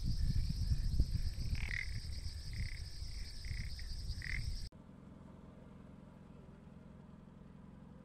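Frogs calling in a wetland: a high, pulsing chorus with a string of short repeated calls over a low rumble. About halfway through it cuts off abruptly, leaving only a faint steady low hum.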